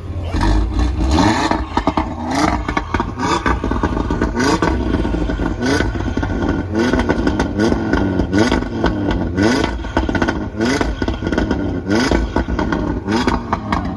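Audi RS3's turbocharged 2.5-litre five-cylinder engine revved again and again in quick throttle blips, each a short rising sweep in pitch, with sharp exhaust pops and crackles between them.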